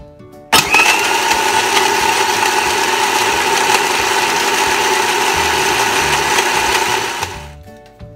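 Countertop blender with a glass jar running at full speed, blending ice cubes, banana and milk, with a steady motor whine. It switches on suddenly about half a second in and winds down near the end.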